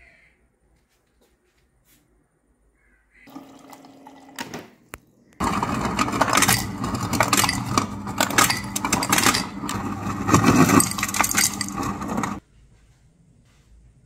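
Refrigerator door ice dispenser dropping cubed ice into a glass: a loud clatter of tumbling cubes over a steady motor hum for about seven seconds, starting about five seconds in and cutting off suddenly. A brief, quieter whirr comes about three seconds in.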